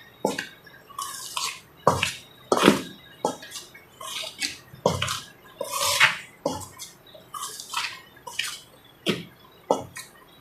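Hands mixing flour with ghee and baking powder in a bowl: irregular rubbing and scraping strokes, roughly one or two a second.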